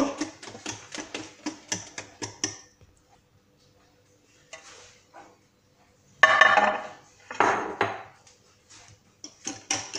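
Wire whisk beating semolina batter in a glass bowl, a quick run of clinks against the glass that stops about two and a half seconds in. After a short pause, a glass baking dish scrapes and knocks twice on the marble counter as it is set down beside the bowl, then a few light clinks near the end.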